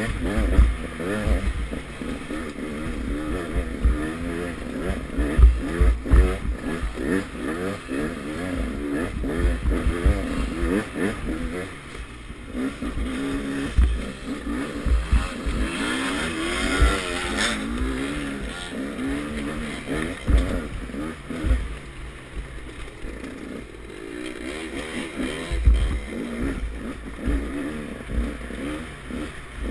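KTM 200 XC-W two-stroke single-cylinder dirt bike engine revving up and down again and again as it is ridden over rough ground, with low thumps on the microphone. A brighter hiss comes in briefly about halfway through.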